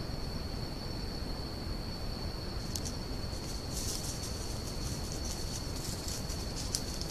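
Crickets trilling steadily at a high pitch over a constant hiss. Scattered dry crackling rustles join in from about three seconds in and grow busier toward the end.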